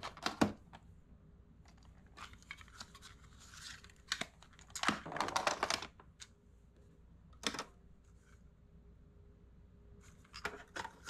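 Plastic cassette tapes and their cases clicking and rattling as they are handled and one tape is taken out of its case. The sound is a string of sharp clicks, with a longer rattle about five seconds in.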